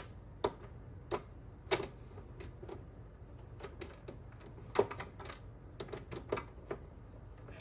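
Light, irregular clicks and taps of a screwdriver taking screws out of an MSX computer's case, a dozen or so scattered through, the sharpest about five seconds in.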